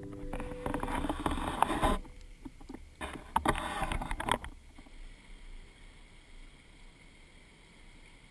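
Water splashing and sloshing around a camera as it is lifted out of the water, in two bursts of about a second and a half each, then only faint wind hiss.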